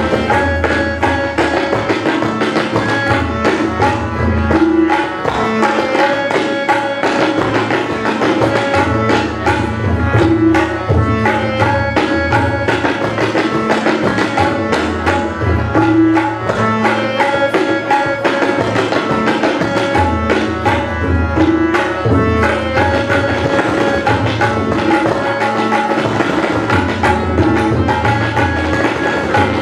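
Tabla ensemble of several players striking quick, dense strokes in unison, over a harmonium holding a melody that comes round about every six seconds.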